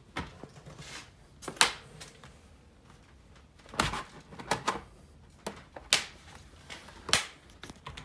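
Faceplate of a Tesla Wall Connector being pressed and snapped onto its clips by hand: a series of irregular clicks and knocks, the sharpest about one and a half seconds in.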